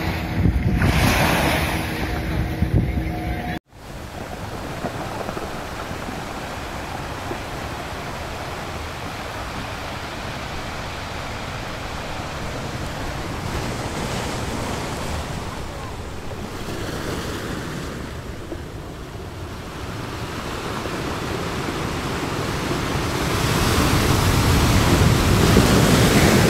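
Small waves of a calm sea washing onto a sandy shore, with wind on the microphone; the surf grows louder near the end. For the first few seconds a steady motor hum sits underneath and stops abruptly.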